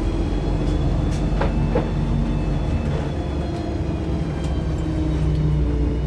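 Inside a LiAZ-5292.65 city bus under way: the engine and drivetrain drone steadily, with a faint high whine over it and a few light rattles about one to two seconds in.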